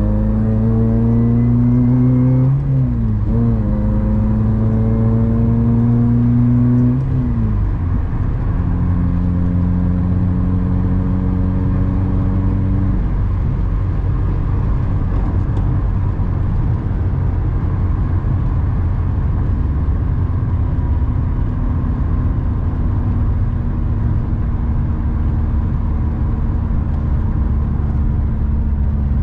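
Honda Civic Si engine pulling up through the gears: its note climbs steadily, drops sharply at a gear shift about two and a half seconds in and again about seven seconds in, then holds a steady pitch. From about thirteen seconds on the engine note fades into a steady low road rumble while cruising.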